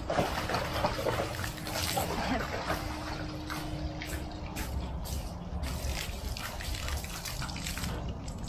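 Garden hose jet splashing into a shallow plastic paddling pool of water, with irregular splashes as a dog steps and plays in it.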